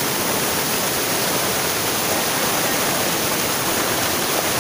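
A small waterfall pouring over rocks into a pool: a steady, unbroken rush of water.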